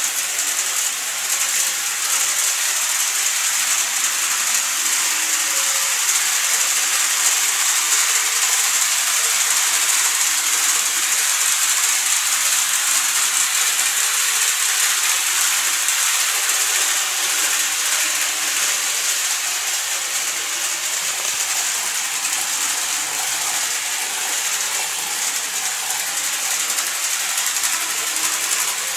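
Model electric trains running on the layout track: the steady, high-pitched whirring hiss of their motors and wheels rolling over the rails.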